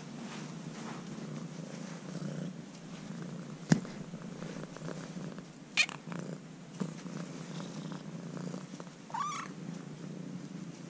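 Orange-and-white kitten purring steadily while its lower back is patted, a sign that it is content. A sharp knock sounds about four seconds in, and the kitten gives two brief high cries, near the middle and near the end, the second one rising in pitch.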